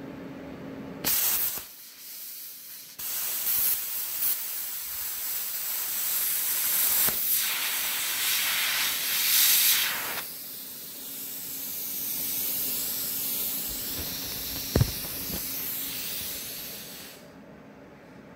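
Everlast PowerPlasma 82i plasma cutter at 20 amps and 70 psi, piercing and cutting thin sheet steel. A loud hiss starts about a second in and runs for about nine seconds while the cut is made. After that, a quieter hiss of post-flow cooling air continues until it cuts off near the end, with one sharp knock about three-quarters of the way through.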